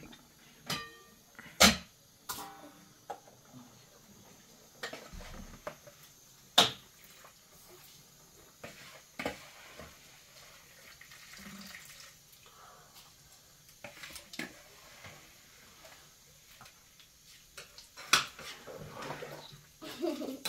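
Pots, dishes and utensils being handled, with scattered clinks and knocks and some water, as in washing up or food preparation. Three sharper knocks stand out, about two seconds in, near seven seconds and near eighteen seconds.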